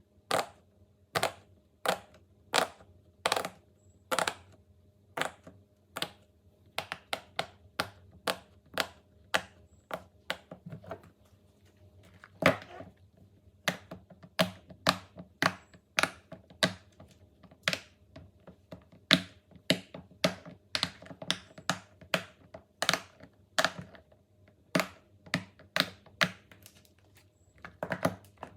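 Silicone pop-it fidget toy being pressed: a steady run of sharp pops, one to three a second, with a few quicker clusters.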